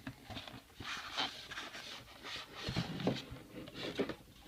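Cardboard packaging being handled while a microphone box is opened: several brief soft rustles and a couple of light thumps near the middle.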